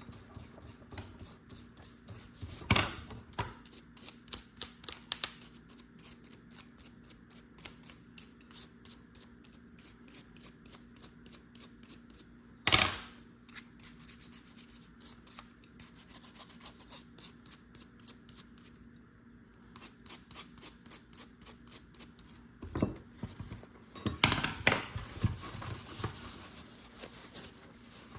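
Metal hand tool clicking in quick, regular runs of about three clicks a second, typical of a ratchet wrench turning fasteners, broken by a few loud metal knocks as a pool pump motor housing is closed up.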